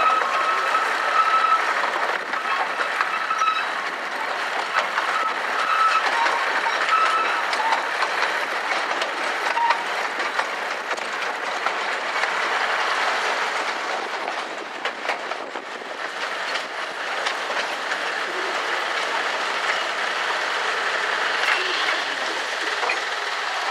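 Running noise of a moving 15-inch gauge miniature railway train heard from an open carriage: steady wheel-and-rail rumble with frequent clicks over the rail joints and a few brief high wheel squeals in the first several seconds.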